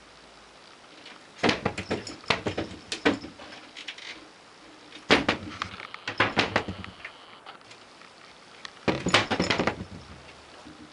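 Three bursts of knocking and rattling clatter, each lasting one to two seconds, with quiet between them.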